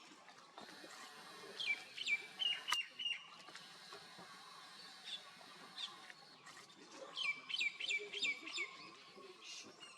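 A bird calling in two quick series of short, high notes, each note sliding downward; the first series comes about one and a half seconds in, the second about seven seconds in. A single sharp click comes between the notes of the first series.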